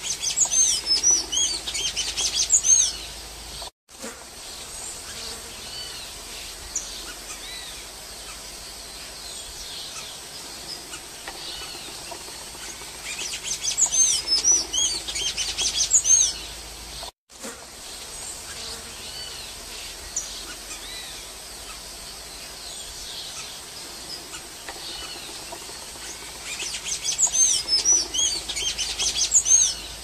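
Golden-chevroned tanager singing: three bursts of rapid, high-pitched squeaky notes, each three to four seconds long, about every thirteen seconds, over a steady faint background hiss.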